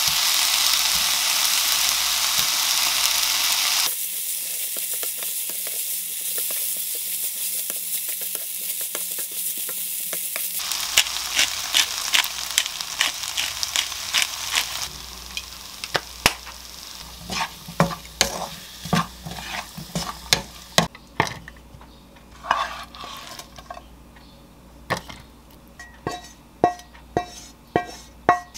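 Pineapple fried rice sizzling in a nonstick frying pan, stirred with a wooden spatula that scrapes and taps against the pan. The sizzle is loud at first. About halfway through it fades as the heat is turned off, leaving mostly sharp spatula taps and scrapes.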